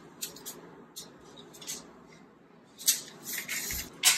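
Soft scattered clicks and scrapes of a tape measure and marker pen being handled against a wall, with two louder scrapes about three and four seconds in.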